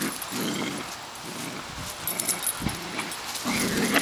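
Two Dobermans making dog noises as they play-fight and tug over a toy, in short irregular bursts.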